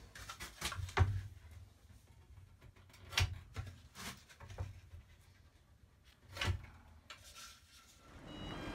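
A thin wooden board being handled on a work surface: a few scattered knocks and rubs as it is picked up, turned and laid down, the loudest knock about a second in. Music fades in near the end.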